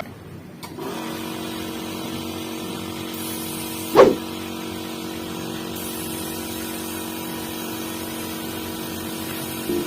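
An engine or motor running steadily with an even hum, with one sharp knock about four seconds in.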